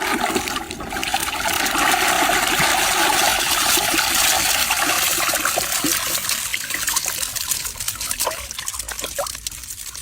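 Pond water churning and splashing hard, as fish thrash at the surface in a feeding frenzy. It starts suddenly, stays heavy for several seconds, then thins to scattered splashes and drips near the end.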